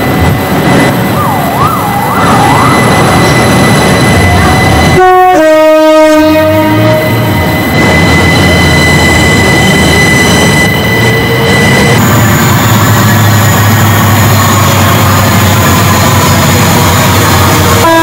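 A train horn sounds once about five seconds in, a brief higher note dropping to a lower one held for about a second and a half, over the steady running noise of a train. Another horn note begins right at the end.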